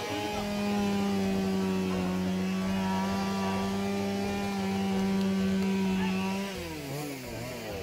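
A small engine running steadily at high revs, then slowing and dropping off near the end.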